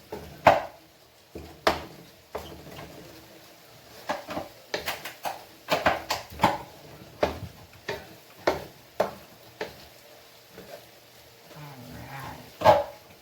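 A cooking utensil tapping and knocking against a frying pan of browning ground turkey: a string of sharp, irregular clicks, the loudest near the end.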